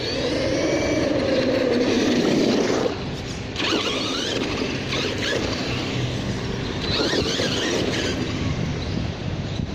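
Redcat Terremoto V2 RC monster truck's Turnigy XK-4074 2000KV brushless motor on 4S, whining as the truck speeds up and slows down. A long rising-then-falling whine fills the first three seconds, and shorter bursts of throttle follow twice.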